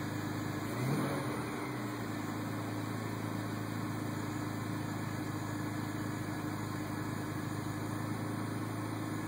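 BMW X5 engine idling steadily, heard from inside the cabin, shortly after being started.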